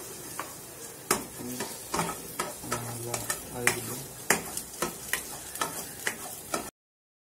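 Chopped garlic sizzling in oil in a nonstick frying pan, while a plastic spatula scrapes and taps against the pan as it is stirred. The sound cuts off suddenly near the end.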